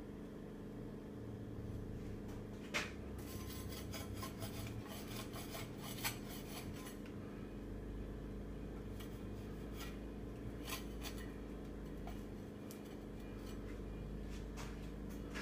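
Faint rubbing and scraping with a few sharp knocks as a charred wooden board is handled and turned against a metal test stand, over a steady low hum.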